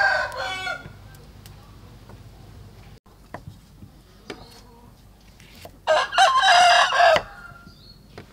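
A rooster crowing: the end of one crow in the first second, then a full crow of over a second about six seconds in. Between them, a few faint taps of a knife on a wooden chopping board.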